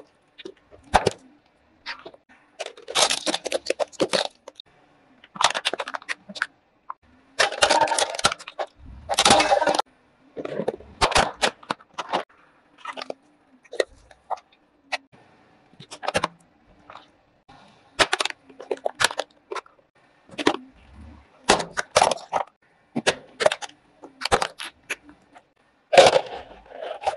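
Plastic bottles, an aluminium foil container and a plastic jelly mould cracking and crunching under a car tyre as it rolls over them. Many single sharp snaps, with several longer crunching spells among them, the heaviest near the middle.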